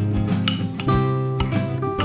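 Background music with plucked guitar, and a light clink of kitchenware about half a second in.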